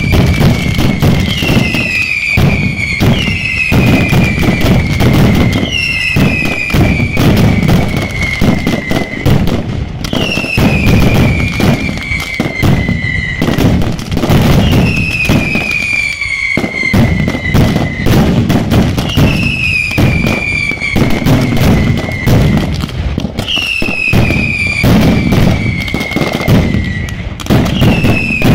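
Mascletà firecrackers going off in a dense, unbroken barrage of sharp bangs. Over them, whistling fireworks shriek one after another, each whistle falling in pitch over about two seconds.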